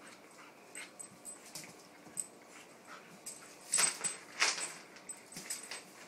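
Two dogs play-fighting on a wooden floor: a string of short scuffles and dog noises, the two loudest a little past the middle, about two-thirds of a second apart.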